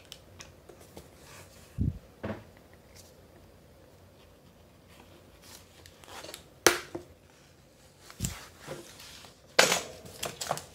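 Handling of a vinyl peel-and-stick floor tile: scattered rustles and taps as it is picked up, flexed and laid back down. There are a couple of low thumps, about two seconds in and again around eight seconds, and a sharp click a little before seven seconds.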